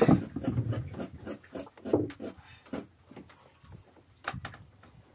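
Irregular knocks and rustling on a small wooden boat's hull as monofilament hand line is handled, with a few sharper knocks about two seconds in and again near the end.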